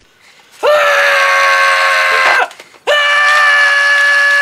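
A person screaming: two long, high screams held at a steady pitch, one after the other with a short break between.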